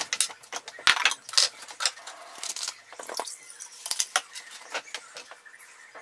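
Heavy sterling silver Bismarck chain bracelet jingling and clinking as it is handled: a quick, irregular run of sharp metallic clinks that thins out near the end.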